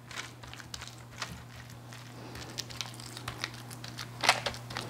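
Parchment paper crinkling and rustling while a wooden spoon presses and spreads a soft zucchini-and-cheese dough across it, in irregular short scrapes, with a louder cluster of crinkles about four seconds in.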